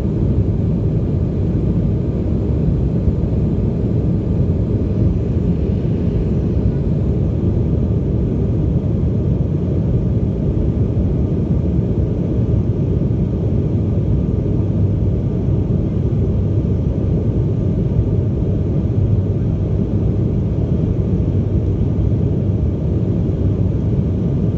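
Steady low roar inside the cabin of a Sukhoi Superjet 100 climbing after takeoff: engine and airflow noise from its two PowerJet SaM146 turbofans, even and unchanging.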